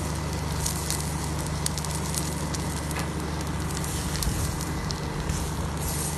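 Butter sizzling and crackling in a nonstick frying pan as two tortilla-wrapped burritos toast in it, scattered sharp crackles over a steady low hum.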